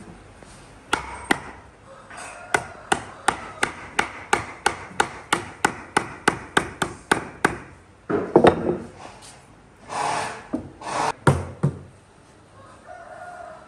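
A steady run of sharp knocks on wood, about three a second for some five seconds, like a hammer striking wood. This is followed by longer scraping or rushing noise and a few louder knocks near the end.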